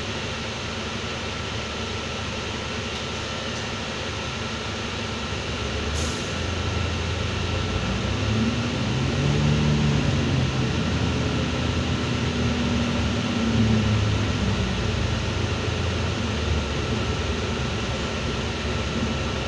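Inside a Heuliez GX327 Hybrid city bus: a steady hum with a thin high tone while the bus stands nearly still. A short click comes about six seconds in. Then the drivetrain grows louder, its low drone rising and falling in pitch as the bus pulls away and picks up speed.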